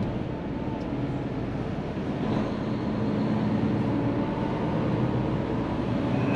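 Diesel engine of a Hino semi-truck tractor running steadily under load as it pulls a loaded chip trailer, heard from inside the cab along with tyre and road noise.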